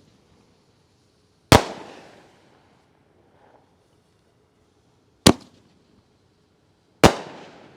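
Consumer artillery shells firing and bursting: three sharp bangs, about a second and a half in, just after five seconds, and near the end. The first and last ring out into long echoing tails.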